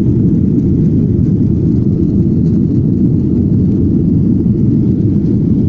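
Steady, loud cabin noise of a Boeing 737-800 climbing after takeoff: the CFM56-7B turbofans and the airflow heard from inside the cabin as an even rumble, with most of its weight low down.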